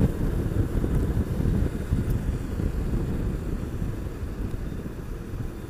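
A Honda VT750S motorcycle riding along: a low, rough rumble of engine and road noise mixed with wind rush on the bike-mounted microphone, easing off slightly toward the end.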